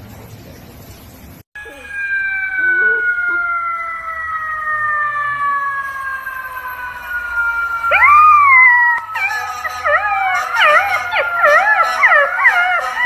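A siren wailing, its pitch sliding slowly down, with a golden retriever puppy howling along to it; the howls come quick and wavering in the last few seconds.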